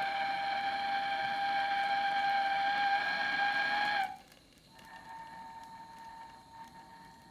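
Gas soldering torch heating a copper pipe joint, giving a steady whistling tone. The whistle dips slightly in pitch and cuts off sharply about four seconds in, leaving a fainter, higher tone.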